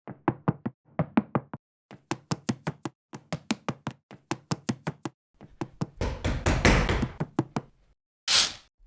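Rapid knocking in quick bursts of four to six knocks, then a scratchy, rustling stretch with more knocks in it, and a brief high hiss near the end.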